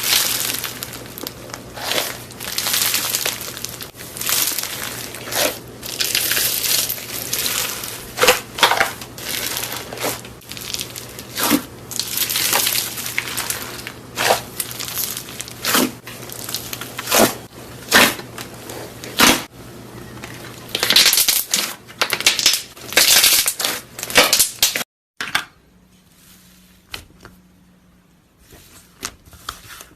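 Slime being squeezed and pressed, giving clusters of quick, sharp crackles and pops. It cuts off abruptly near the end and is followed by fainter, scattered clicks.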